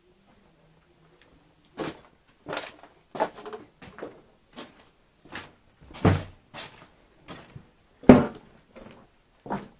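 Footsteps on wooden boards and scattered wood scraps: an uneven run of knocks and thuds about every half second, with two louder thumps in the second half.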